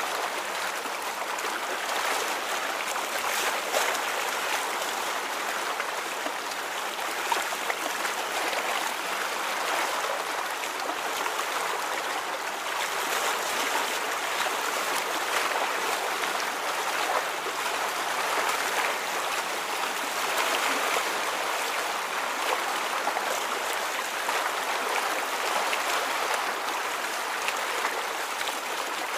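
Rippling water: a steady wash of small splashes, trickles and gurgles.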